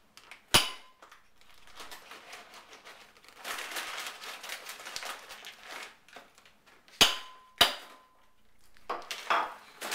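Sharp blows of a hammer striking a wine glass stem through a brown paper bag, trying to crack the stem off the goblet: one strike about half a second in and two close together about seven seconds in, each clink ringing briefly. Paper bag rustling between the strikes.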